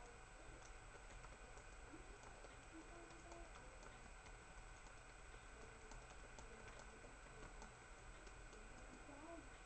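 Near silence: a faint steady hiss and low hum, with scattered faint clicks at an irregular pace.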